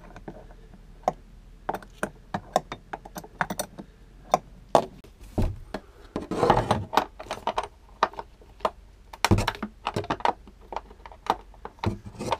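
Irregular metallic clicks and clinks of a hand tool working the half-inch bolts that hold an RV toilet to the floor, with a short spell of scraping and handling noise around the middle.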